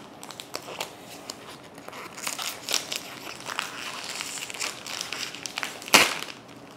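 Clear plastic wrapping of a small saline bag crinkling and crackling as gloved hands work it open, with one loud sharp crackle about six seconds in.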